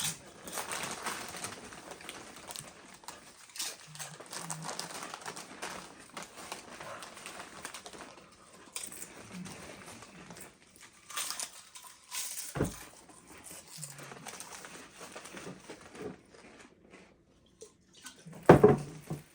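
Doritos tortilla chips being crunched and chewed, with crinkling from the chip bags: irregular crackles throughout. A short, louder sound comes near the end.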